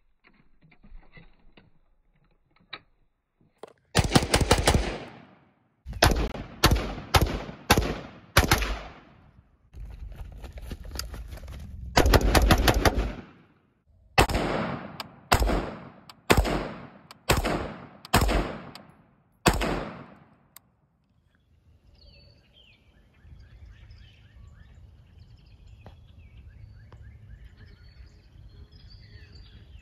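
AR-15 rifle firing about fifteen shots in irregular strings, with a quick run of shots near the middle. After the shooting stops, faint bird chirps over quiet outdoor background.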